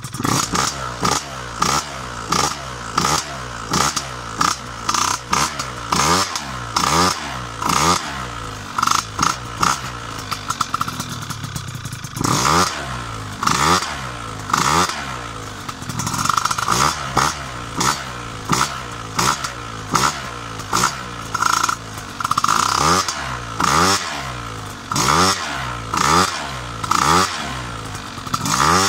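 Piaggio Zip SP scooter's two-stroke engine, fitted with a Malossi 172 cylinder kit, Keihin PWK 35 carburettor and PM Tuning PM59 expansion exhaust, revved in short repeated throttle blips about once a second, falling back between each. It is being warmed up after a cold start.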